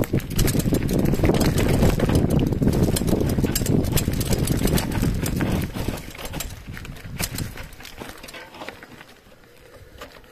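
Mountain bike riding down a rocky dirt trail: wind rumble on the microphone mixed with the clatter and rattle of the tyres and bike over stones. The rumble drops away about six seconds in, leaving scattered clicks and rattles.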